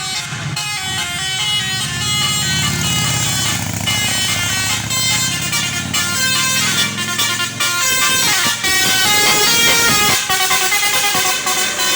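A tour bus's Basuri musical air horn (telolet) playing a quick melody of stepping notes, over the low rumble of the bus's engine. The engine rumble fades after about seven seconds while the horn tune carries on.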